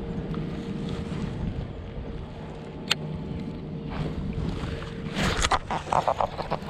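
Wind rushing on the microphone over water, with a single sharp click about three seconds in and a quick run of clicks and knocks near the end.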